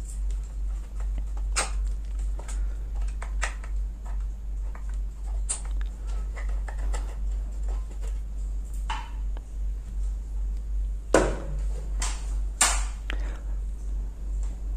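Screwdriver working the screws of a ceiling fan's blade bracket: scattered small metal clicks and taps, with two louder knocks near the end, over a steady low hum.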